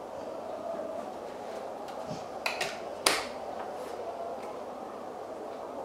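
A steady low hum, with two quick clicks about two and a half seconds in, then a single sharp click or knock just after three seconds, the loudest sound here.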